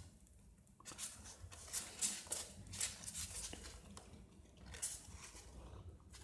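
Small plastic clicks and scrapes of a Figma action figure being handled, its joints and parts moved as it is posed.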